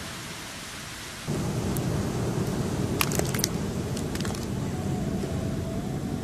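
Beach wind and surf noise, a steady rushing haze that gets louder and heavier in the low end about a second in, with a few faint clicks about three seconds in.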